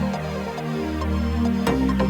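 Electronic background music with a deep bass and a steady beat; the drums drop out briefly and come back in near the end.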